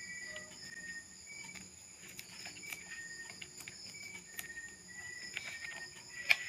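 Faint steady high-pitched insect trilling, with short chirps now and then, and a few light clicks of stripped wires being twisted together by hand.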